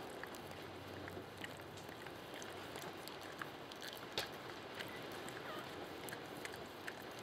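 Shiba Inu mother licking a newborn puppy: faint wet licking and smacking clicks, scattered through, with one sharper click about four seconds in, over a low hiss.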